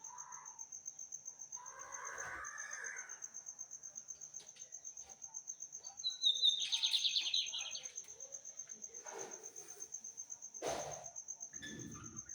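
A seedeater sings a short phrase of rapid notes, opening with a falling note, about six seconds in. Under it runs a steady, fast-pulsing high insect trill.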